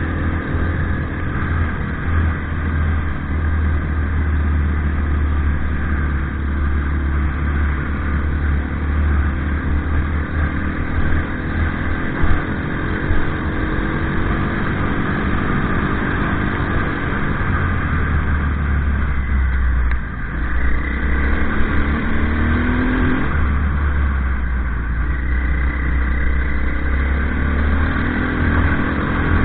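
Off-road vehicle's engine running under way, rising in pitch as it accelerates about two-thirds through and again near the end, over a steady low rumble.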